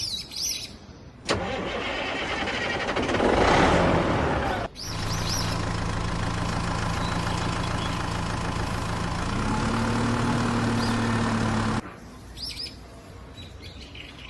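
A vehicle engine starts with a loud burst, then runs steadily, its pitch stepping up slightly about two-thirds of the way through before it cuts off suddenly. Birds chirp briefly before and after the engine sound.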